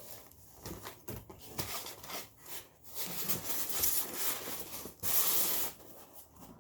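Packaging being handled and rummaged through: irregular rustling and rubbing, with a louder rustling burst about five seconds in.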